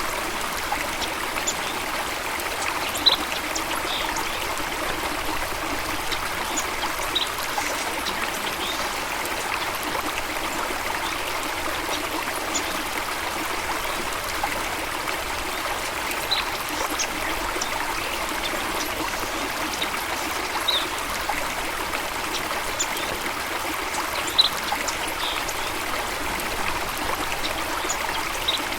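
A stream or small waterfall running steadily, with a few short high blips scattered through.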